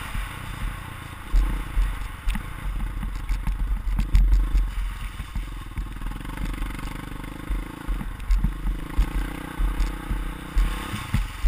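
Dirt bike engine running as it rides over a bumpy, rutted dirt track, heard from a helmet-mounted camera, with frequent knocks and rattles from the bike over the ruts.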